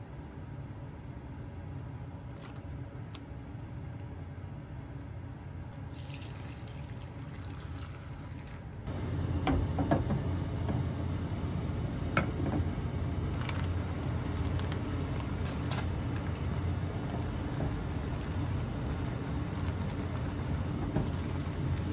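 Kitchen cooking sounds: a low steady hum with a few light clicks while vegetables are handled, then, about nine seconds in, a steady rush of water in a pot on a gas stove starts and runs on, with occasional clinks.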